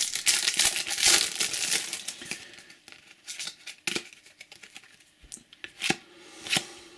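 Foil wrapper of a Topps Match Attax trading card booster pack crinkling and tearing open for the first couple of seconds. Then quieter rustling as the cards are handled, with a few sharp flicks.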